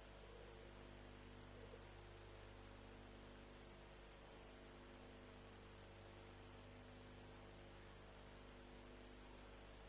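Near silence: a steady electrical hum with faint hiss in the audio feed.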